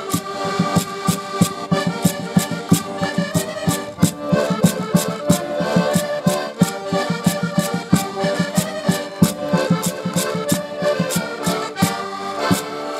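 An ensemble of diatonic button accordions (Portuguese concertinas) playing a traditional tune together, their reedy chords held under a steady clicking percussion beat.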